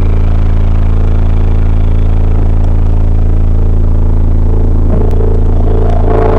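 Two 15-inch Cascade Omega subwoofers playing a very loud, steady deep bass note. Fuller music comes in about six seconds in.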